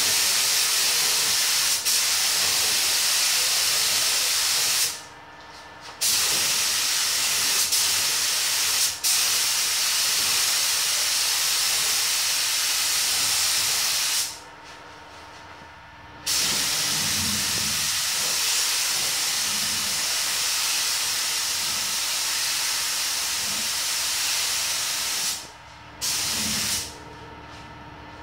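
Iwata AirGunsa spray gun with a 1.3 mm nozzle hissing steadily as it sprays clear coat in long passes. The hiss stops for about a second some five seconds in, for about two seconds near the middle, and twice near the end.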